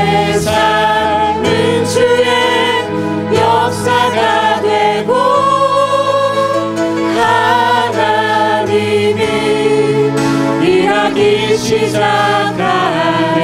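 A worship team of men and women singing a praise song together into microphones, with acoustic guitar and sustained low accompaniment.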